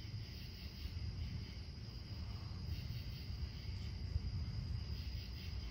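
Crickets chirping steadily as a night insect chorus, a thin high trill, over a steady low rumble.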